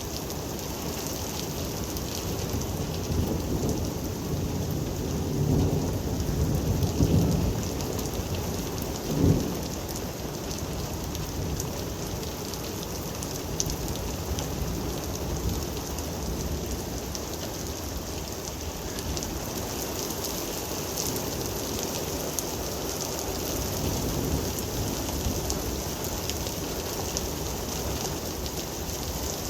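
Heavy rain falling steadily in a thunderstorm, with thunder rumbling from about three to eight seconds in and a short, louder boom at about nine seconds.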